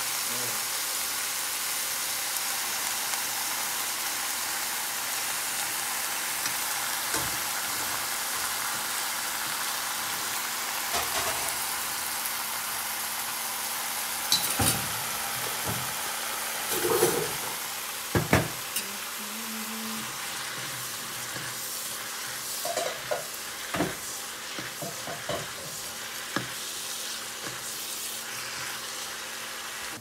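Bok choy sizzling as it stir-fries in a pan, a steady hiss. From about the middle on, a utensil knocks and scrapes against the pan now and then as the greens are stirred.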